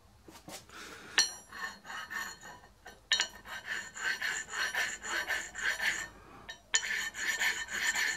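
Flat oil stone rubbed back and forth against the steel nose of a camshaft, a rapid scraping in three runs with short pauses about 3 s in and again near 6.5 s, honing the shaft so a tight timing gear will slide on with clearance.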